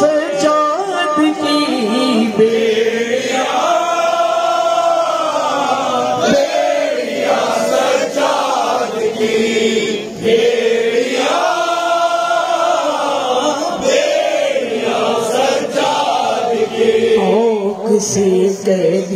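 Noha recitation: a man chanting a mourning lament into a microphone, unaccompanied, in long drawn-out melodic phrases.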